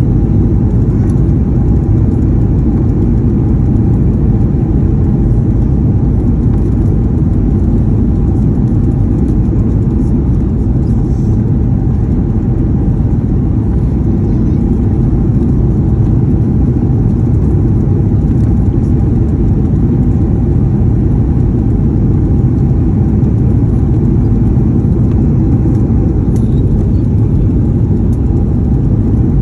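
Aircraft cabin noise on approach to landing: a loud, steady rumble of engines and airflow, even throughout, with a faint steady hum above it.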